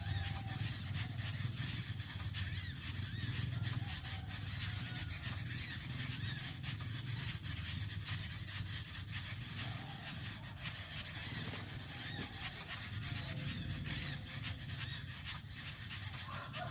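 Small birds chirping: short, high, arched notes repeated two or three times a second, over a steady low rumble and regular faint clicks.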